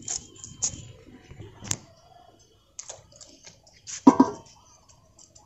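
A nylon cast net being handled and gathered up on a brick path: scattered light clicks and rustles with short quiet gaps, and one louder brief sound about four seconds in.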